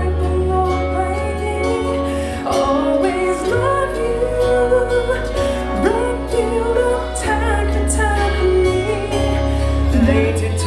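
A pop ballad playing, with a woman singing a melody over a steady bass accompaniment.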